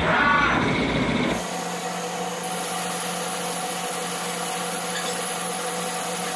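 CNC lathe turning a steel cylinder, the spindle running and the insert tool cutting. It is louder and rougher for about the first second and a half, with a ringing higher-pitched edge, then settles into a steady hum.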